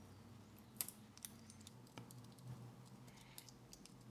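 Faint, scattered clicks and light crinkles of Kapton tape and a small metal battery connector being handled.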